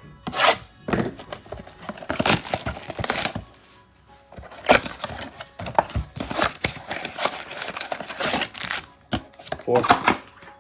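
Trading-card packs being torn open, their wrappers crinkling and ripping in irregular crackles, over background music.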